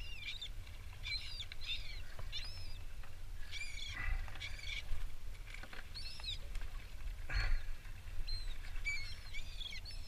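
A flock of gulls calling, with many short high calls that rise and fall in pitch and overlap in quick clusters. Steady wind rumble on the microphone sits beneath them.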